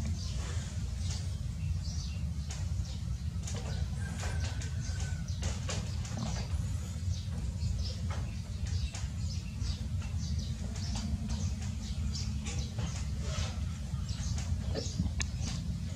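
Outdoor background noise: a steady low rumble with many small, irregular clicks and ticks, and a faint short chirp about four seconds in.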